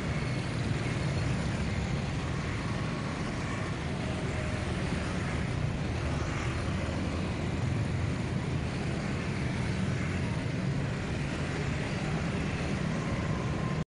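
Steady city street traffic noise: motorbikes and cars passing with a continuous low rumble.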